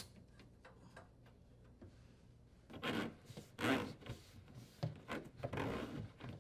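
Dishwasher drain hose rubbing and dragging against the cabinet as it is pulled through, in several pulls that start about three seconds in. A few light clicks come before.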